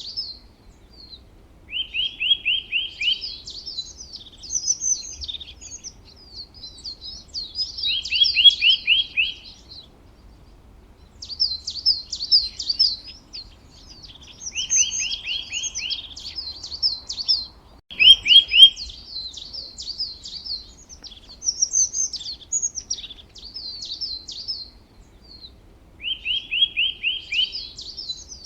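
Songbirds singing: varied high chirping phrases, broken every few seconds by a short, fast trill of lower repeated notes. A single sharp click about two-thirds of the way through.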